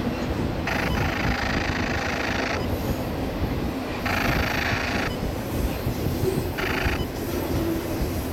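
Union Pacific double-stack container train rolling past, its well cars making a steady low rumble. A higher rushing, grinding noise from the wheels comes and goes every couple of seconds.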